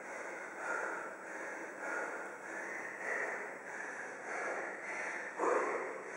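A man panting hard after an all-out workout, quick heavy breaths in and out, with one louder gasp near the end.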